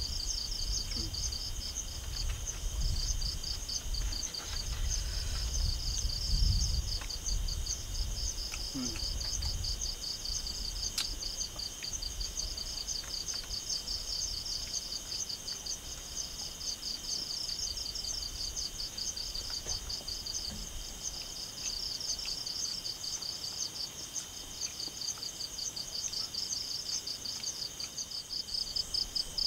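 Night insects chirping in a steady chorus of fast pulsing trills, with a low rumble through roughly the first ten seconds and a few faint clicks.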